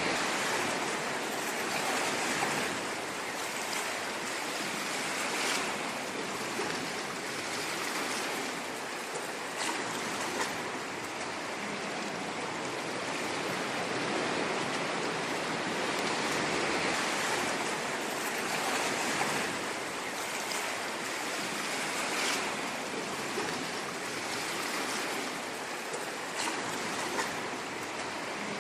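Ocean surf: a continuous rushing wash of waves that swells and eases gently every few seconds, with faint fizzing crackles of foam.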